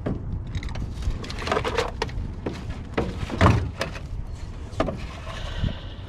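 Irregular knocks and thumps inside a fishing boat over a low steady rumble.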